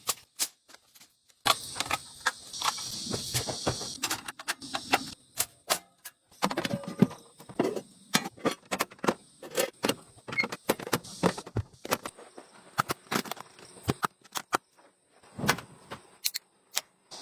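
Irregular clicks, taps and light rattles of small hard objects being handled, with insects chirping in the background for a few seconds near the start.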